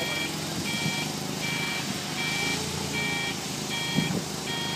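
Forklift warning beeper sounding a steady two-tone beep about once every three-quarters of a second, over the forklift's engine running. A single knock about four seconds in.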